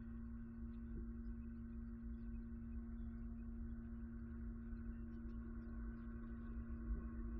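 Steady low hum on one held pitch over a low rumble, with faint high chirps or ticks scattered through it.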